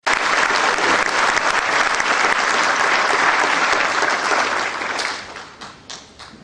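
Audience applauding, the clapping thinning out about five seconds in and ending in a few last separate claps.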